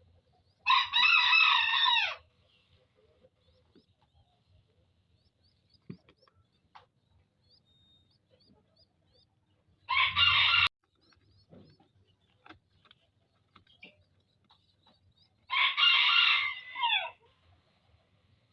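A rooster crowing three times, the middle crow shorter, with faint small chirps and ticks between the crows.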